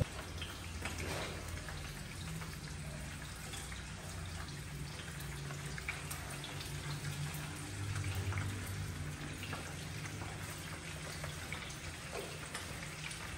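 Faint crackling sizzle of food frying in oil in a pan on a gas stove, with many small pops over a steady low hum.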